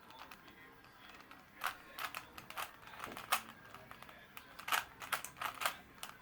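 Rubik's cube layers being turned by hand: a series of sharp plastic clicks, some in quick runs of two or three, at an irregular pace.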